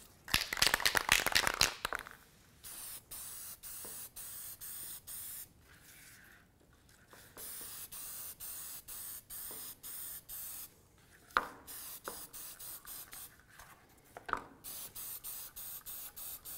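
Aerosol spray-paint can shaken hard, its mixing ball rattling, for about a second and a half. Then paint is sprayed in three runs of short, quick hissing spurts with pauses between them, and a couple of single knocks in the second pause.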